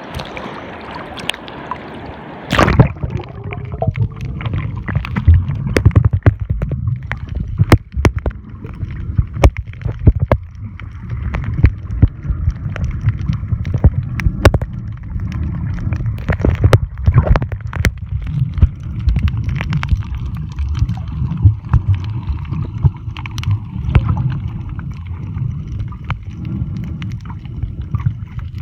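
Water sloshing at the surface, then the camera plunges under about three seconds in. From there it is the muffled underwater sound of moving water: a low churning rumble with frequent sharp clicks and crackles.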